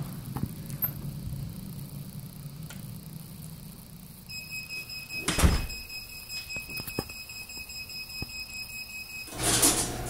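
Garage door opener running with a low rumble that fades out about four seconds in. A steady high-pitched whine follows, with a loud thump about a second later and a few clicks, and a loud rush comes near the end.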